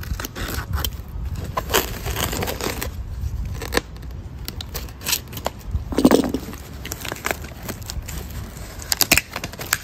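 Utility knife slicing through packing tape and cardboard on a tape-wrapped box, followed by the taped cardboard flaps being pulled open, with scattered crackles and short tearing scrapes of tape and cardboard.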